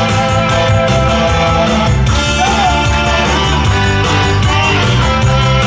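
Instrumental introduction of a song: music with a steady low beat, sustained chords and a lead melody line, with no voice yet.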